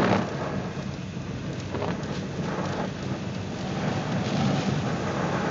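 Heavy rain beating on a car's roof and windows in a severe thunderstorm, heard from inside the car: a steady, dense rushing with a low rumble underneath, swelling a little near the end.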